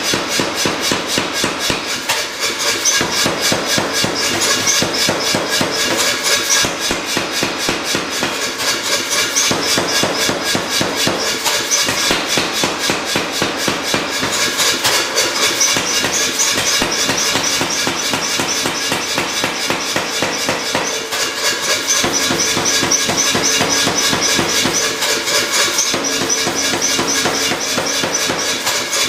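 Power hammer pounding red-hot steel bar stock in a rapid, steady run of blows.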